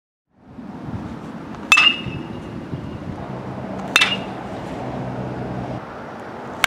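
Metal baseball bat hitting pitched balls: two sharp pings about two seconds apart, each with a short metallic ring, and a third hit just at the end.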